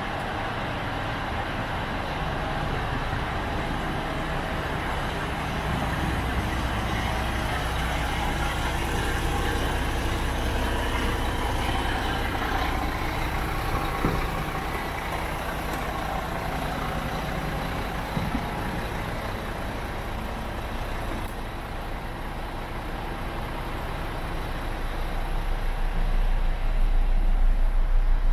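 Scania G400's 400 bhp turbo diesel engine idling steadily, a continuous low hum. It grows louder with an even low throb near the end.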